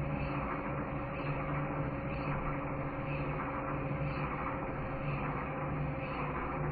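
A steady mechanical hum with a low, constant tone, swelling and fading slightly.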